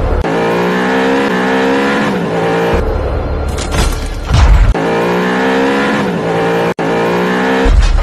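Car engine revving in two long passes, with a heavy low hit between them about four seconds in.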